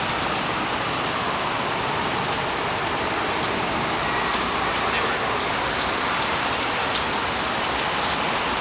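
Heavy rain falling steadily, with scattered drops ticking close by.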